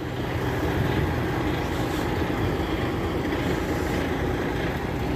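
Diesel engine of a loaded tractor-trailer truck running steadily, a constant low drone with no changes in pitch.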